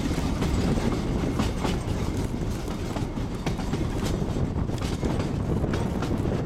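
Darjeeling Himalayan Railway narrow-gauge (610 mm) train running, heard from an open carriage window: a steady low rumble with irregular clicks of the wheels over the rail joints.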